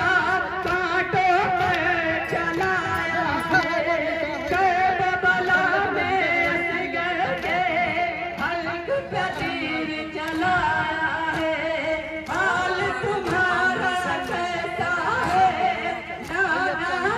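A noha, a Muharram lament, sung solo with a wavering, ornamented melody and played over a horn loudspeaker, with sharp slaps keeping time beneath it.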